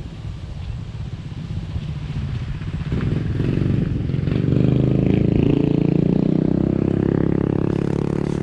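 Small motorcycle engine approaching and running close by, growing louder from about three seconds in and staying loud near the end.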